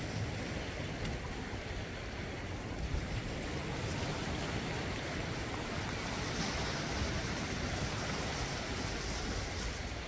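Sea surf washing over black volcanic shore rocks, a steady wash of water with a wave breaking more loudly around the middle.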